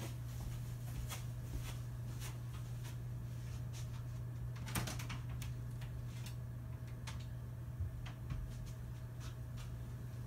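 Room tone: a steady low hum with scattered light clicks and knocks, one a little louder about five seconds in.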